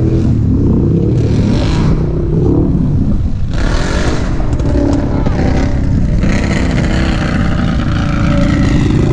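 Several ATV engines running loud and revving, their pitch rising and falling, with a louder, harsher stretch from a few seconds in.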